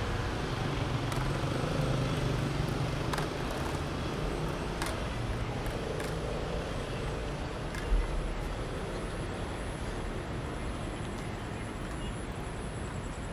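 City street traffic: vehicles running past with a steady rumble, an engine's low hum strongest in the first half, and a single low thump about eight seconds in.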